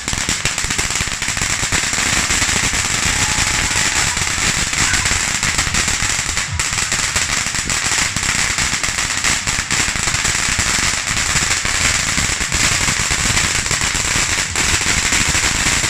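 Phoenix Fireworks 'Lucky Fountain of Eden' ground fountain firework burning: a steady loud hiss packed with rapid crackling.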